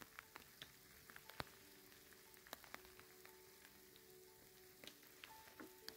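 Light rain starting: faint, scattered raindrops ticking at irregular intervals, one sharper drop about a second and a half in. Faint held notes of background music sit beneath.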